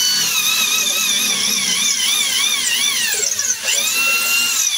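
Corded electric drill boring into a concrete wall, its motor whine wavering up and down in pitch as the bit bites. The pitch dips sharply about three and a half seconds in, then the drill runs up again to a steady whine and starts to wind down at the very end.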